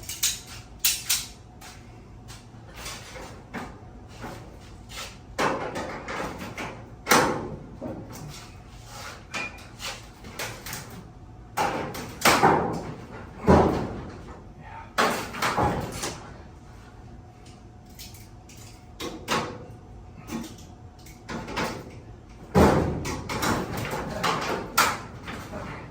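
Irregular metal knocks, clanks and rattles as a damaged sectional garage door that has come out of its track is handled and worked on, with some longer scraping sounds in between.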